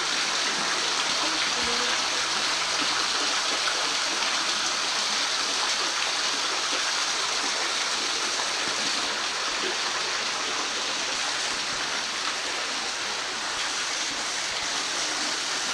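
Spring water trickling and dripping off a mossy rock overhang, a steady, even splashing.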